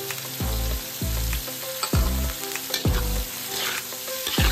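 Pork and garlic sizzling in a hot aluminium wok, with a metal spatula scraping and stirring through the pan near the end. Background music with a steady bass beat plays underneath.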